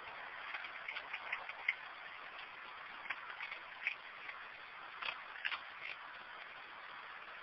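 Raccoon eating dry cat food from a dish: irregular crunches and clicks of kibble, coming in small clusters, over a steady hiss.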